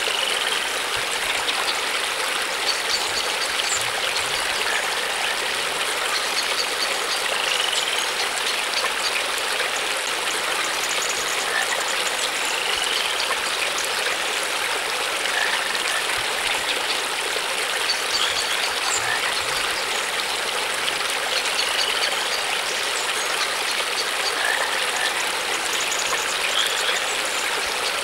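Steady rush of flowing water, like a stream, with short high rising chirps every few seconds over it.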